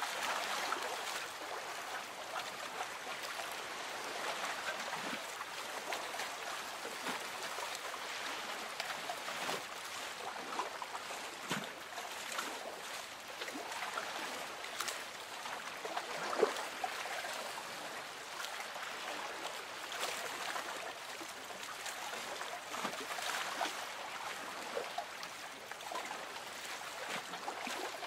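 Gentle lake water lapping against a boat's hull, a steady watery wash with small trickles and splashes, one a little louder just past halfway.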